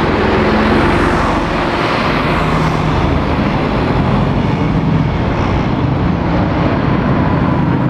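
Heavy road traffic passing close by: a Mercedes-Benz lorry tractor unit running without a trailer drives past, followed by a three-axle coach pulling round the roundabout. Diesel engines and tyre noise run on steadily throughout.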